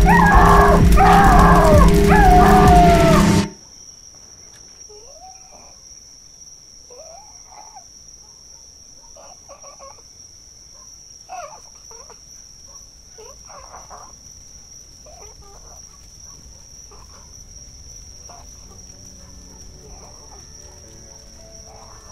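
Loud, harsh, distorted noise with several wailing cries falling in pitch cuts off suddenly about three and a half seconds in. A faint, steady high-pitched trill like night insects follows, with a few faint short calls scattered through it.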